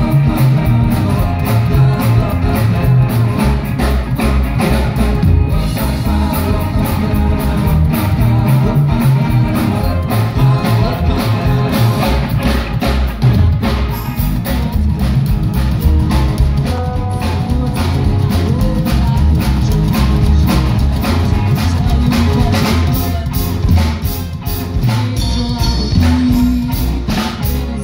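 Rockabilly band playing live: upright bass, electric guitar and drum kit driving a steady, fast beat, with a singer.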